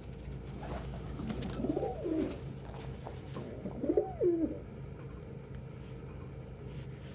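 Domestic pigeon cooing: two coos, each rising and then falling in pitch, about a second in and again around four seconds in.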